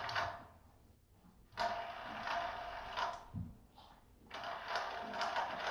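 Ball rolling round the circular plastic track of a cat's ball-circuit toy as kittens bat it, making rapid clicks over a light ringing. It goes in three runs with two short pauses, where the ball comes to rest.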